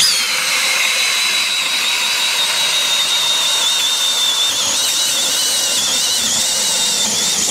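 Powered ice auger drilling a fishing hole through lake ice: a steady motor whine with a high-pitched tone that wavers slightly as the auger bites.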